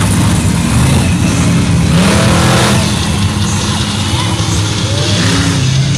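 Monster truck's big engine running loud as the truck drives across the arena, its note rising about two seconds in.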